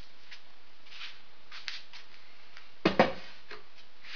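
Two sharp knocks close together about three seconds in, over a steady low hiss: the assembled wooden chair seat frame being set down.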